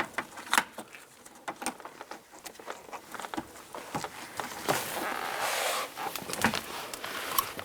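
Hands working a rubber wiring grommet into its hole in a car door: scattered small clicks and taps, with a stretch of rubbing about five seconds in.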